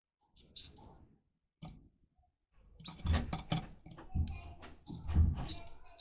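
Caged canary giving short, high chirp notes, a few just after the start and a quick run of them near the end. In between comes a stretch of rough rustling and knocking as the bird moves about the cage.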